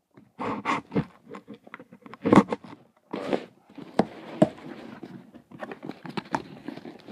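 A cardboard shipping box being opened and handled by hand: irregular scraping and crunching of cardboard, with a few sharp knocks.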